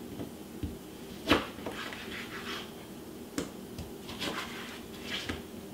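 Chef's knife cutting lemons into quarters, with a handful of separate sharp knocks as the blade strikes the cutting board, the loudest about a second in.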